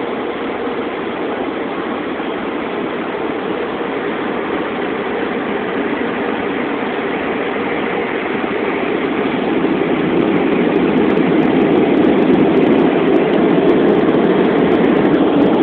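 Steady rushing noise heard from inside a car, even and unbroken, growing louder about ten seconds in.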